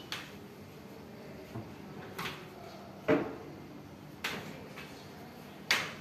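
Modular kitchen base-cabinet doors on soft-close hinges being opened and shut by hand, giving about five short clicks and knocks from the doors and hinges. The loudest comes about three seconds in.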